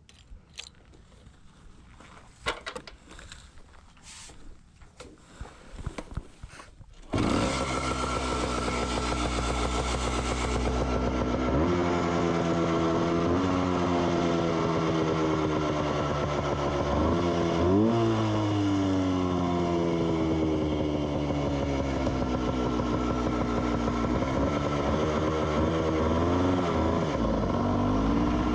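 1972 Ossa Pioneer 250's two-stroke single-cylinder engine. It comes in abruptly about seven seconds in and keeps running, its revs rising and falling several times. Before that there are only a few scattered knocks and clicks.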